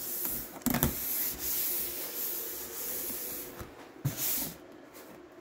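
A hand rubbing and sliding across a corrugated plastic (coroplast) body panel, making a dry, scratchy hiss. There is a light knock about a second in and another near four seconds.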